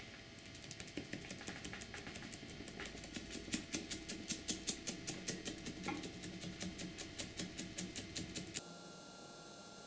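Foam pad dabbing wet paint onto a cast-iron drill press base: a quick, regular run of light taps, several a second, that stops shortly before the end.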